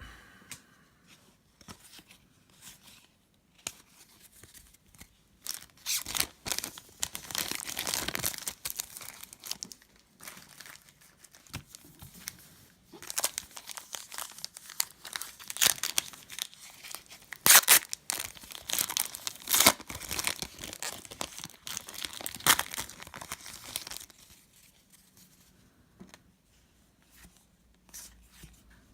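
Trading-card pack wrapper being torn open and crinkled: irregular rustling that starts a few seconds in, is loudest in the middle, and dies down a few seconds before the end.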